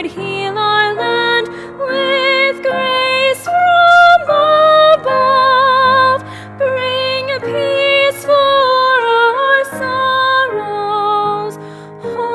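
A woman singing a slow hymn solo, with vibrato on long held notes, over sustained instrumental accompaniment.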